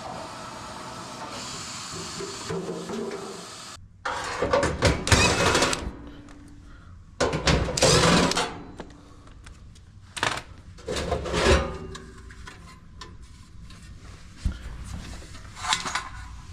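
Handling noise of dryer parts being worked on: three loud clattering, rustling bursts of a second or two each, then a few light clicks. Before these a steady low hiss cuts off abruptly.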